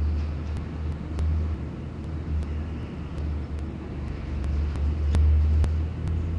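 Loud, uneven low rumble of outdoor background noise on the nest-box microphone, with a scattering of faint sharp clicks.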